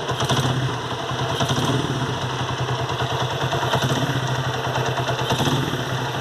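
Honda CG 125 Today's single-cylinder four-stroke engine idling with a steady light clatter from the valve gear. The owner takes it for worn rocker arms knocking against the camshaft, a noise that goes away when the engine is revved.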